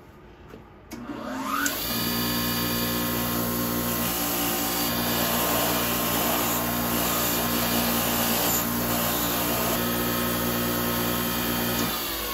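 Bench grinder with a wire wheel switched on about a second in, its pitch rising as it spins up, then running at a steady hum while a tool's steel shaft is held against the wire brush to strip off rust. It is switched off near the end, its pitch falling as it winds down.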